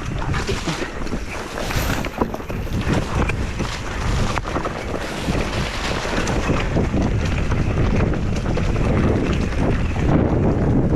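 Wind buffeting the microphone of a mountain bike descending fast on a rough dirt trail, mixed with the rumble of the tyres over the ground and a steady stream of small rattles and clicks from the bike.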